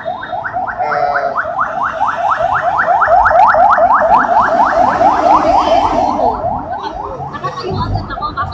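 Electronic siren in a rapid yelp, a falling sweep repeated about four or five times a second, growing louder toward the middle and then fading.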